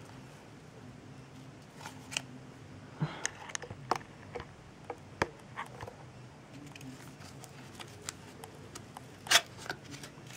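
Hands opening a cardboard product box: scattered light clicks and short scrapes of the flap and packaging being pried open, with one louder rustle near the end.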